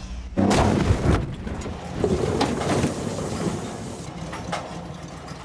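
Car sliding on a loose dirt track, with a sudden loud crash about half a second in, followed by a few sharp knocks and scattered clattering over the rumble of the slide.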